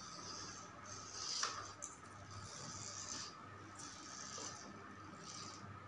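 Faint whirring of a homemade RC car's small electric motors and gears, coming in about four short bursts as it drives, over a steady low hum.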